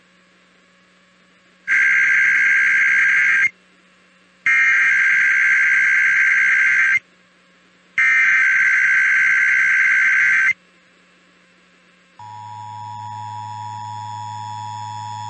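Emergency Alert System SAME header: three bursts of rapid warbling data tones, each about two seconds long with about a second's pause between. Near the end the steady two-tone EAS attention signal begins, quieter than the data bursts.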